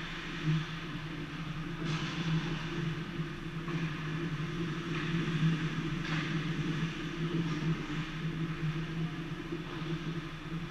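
Indoor ice rink ambience: a steady low mechanical hum, with faint scraping of skates and sticks from play at the far end of the ice.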